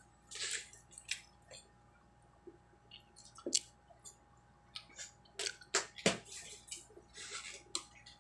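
Close-up chewing and lip-smacking of food, with scattered wet mouth clicks and a few short louder rustles.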